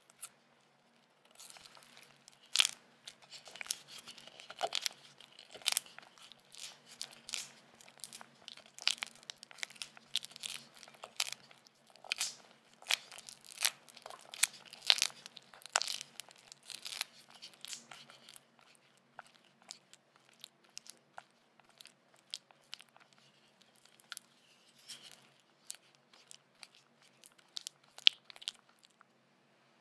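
Silicone spatula mashing and smearing butter against the sides of a glass mixing bowl, creaming it soft: a run of sharp clicks and scrapes of the spatula on the glass. They come thick and fast for the first half and thin out to scattered clicks later.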